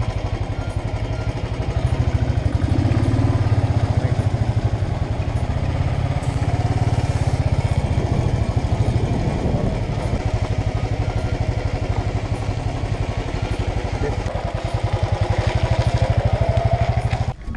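Motorcycle engines running close by, a steady low single-cylinder beat. The beat grows louder a couple of seconds in and again near the end.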